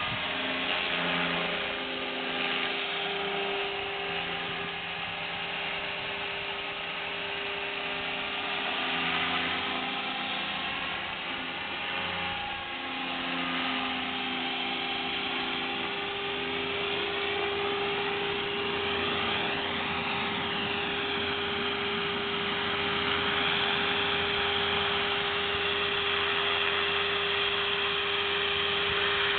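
Electric RC helicopter (Align T-Rex 500 ESP) in flight: a steady high whine from the brushless motor and gears with a rotor buzz, its pitch held nearly constant in idle-up mode and shifting slightly as the helicopter moves about.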